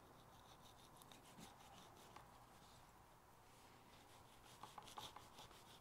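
Faint scraping of a knife blade trimming the rind and fat on the surface of a cured Iberian ham leg: a run of light strokes, with a few sharper clicks near the end.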